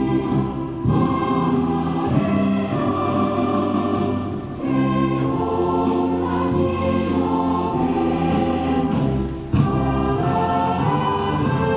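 Large mass choir singing in long held phrases, with brief breaks between phrases about four and a half seconds in and again near nine and a half seconds.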